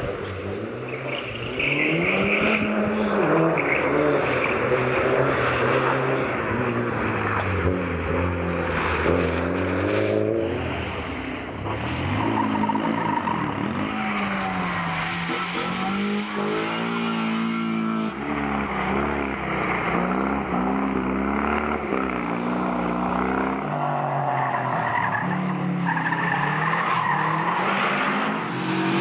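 Rally car engines revving hard and dropping back repeatedly as the cars accelerate and brake through a tight course, with some tyre squeal and skidding on the wet surface.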